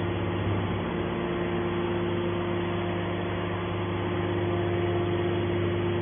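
Scrap metal baler running with a steady, even hum.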